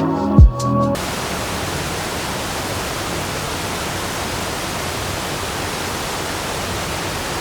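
Steady, even rush of falling water, the roar of a monsoon waterfall or downpour, cutting in suddenly after a second of electronic music.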